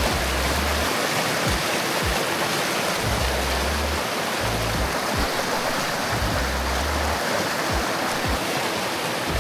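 Mountain stream rushing over rocks: a steady, loud water noise, with low rumbles coming and going underneath every second or two.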